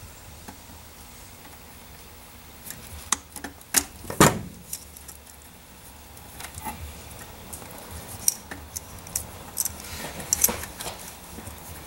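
Small metallic clicks and clinks of pliers and wire terminals being handled inside a plasma cutter's open sheet-metal case. They come scattered: the loudest knock about four seconds in and a quick run of clicks near the end.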